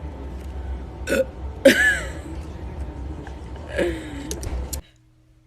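A girl burping loudly several times, the loudest burp about two seconds in, over a steady background hum; the sound cuts off suddenly to near silence shortly before the end.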